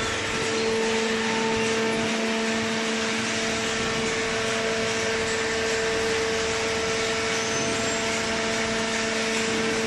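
Vertical hydraulic baler's pump unit running with a steady hum and whine over a broad mechanical noise.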